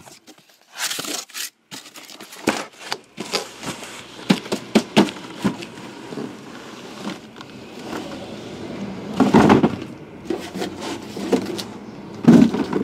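A cardboard shipping case being opened by hand: its taped flaps scraping, rustling and tearing, with knocks as the shrink-wrapped boxes inside are handled. A louder scraping burst comes about nine seconds in.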